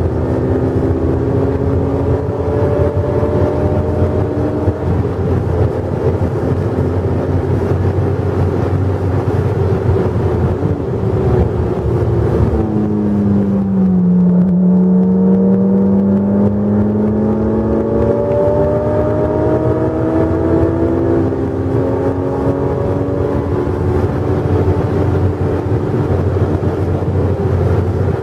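Honda S2000's four-cylinder VTEC engine, with an aftermarket JS Racing exhaust, heard from inside the cabin on track, with wind and tyre noise under it. The engine note holds fairly steady, sinks for a few seconds as the car slows about twelve seconds in, then climbs steadily for several seconds as it accelerates again.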